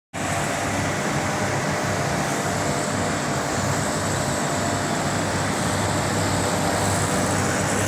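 Heat pump machinery running steadily: an even whir with a low hum and a faint steady whine.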